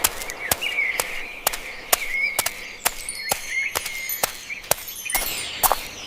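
Footsteps in a steady, sharp rhythm of about two a second, with birds chirping and warbling over them.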